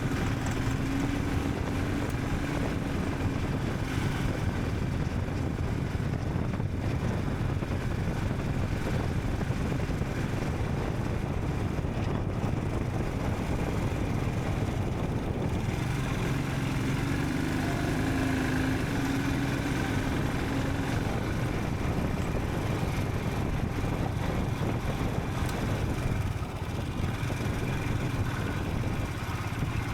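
Royal Enfield Scram 440's single-cylinder engine running steadily under way, with a little change in pitch about two-thirds of the way through.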